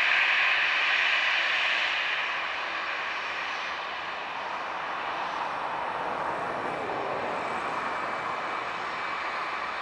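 Airbus A320's CFM56 turbofan engines running at low taxi power as the airliner turns slowly on the runway. A steady high whine over a rush of jet noise is loudest at first and eases off two to four seconds in, then holds steady.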